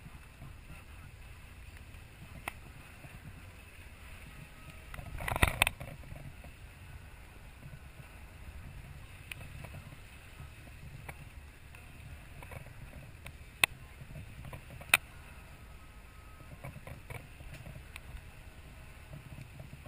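Sportfishing boat idling with a steady low rumble, a short loud burst of noise about five seconds in, and a few sharp knocks scattered through.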